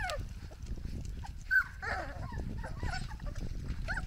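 Dalmatian puppies whimpering and yipping in short, high squeaks that slide in pitch, several in a row, the loudest about one and a half seconds in.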